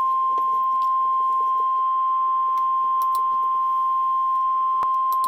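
NOAA Weather Radio warning alarm tone: one steady, unbroken high beep just above 1 kHz. It is the attention signal that comes before a severe thunderstorm warning.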